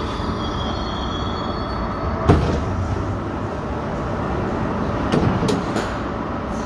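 Berlin U-Bahn HK06 train pulling into a station and coming to a halt, with a steady rumble and hiss from the car. A single sharp clunk comes about two seconds in, and a few lighter clicks follow around five seconds in.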